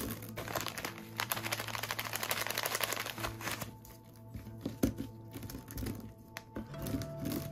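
Gentle background music with long held notes, over close-up handling of craft materials: a dense crinkling rustle for the first few seconds, then scattered light clicks and taps, one sharper click a little past halfway.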